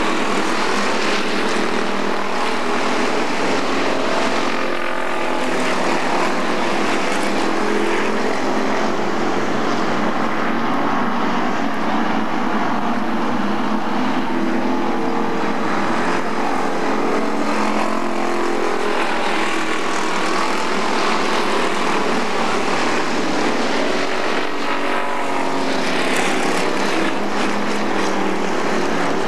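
Several dirt-track street stock cars racing together, their engines running hard in one continuous drone, with pitch rising and falling as the cars pass and go through the turns.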